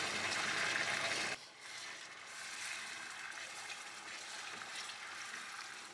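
Blended tomato sizzling and spattering loudly as it is poured into hot oil with cumin in a pan. About a second and a half in, the sound drops suddenly to a softer, steady sizzle.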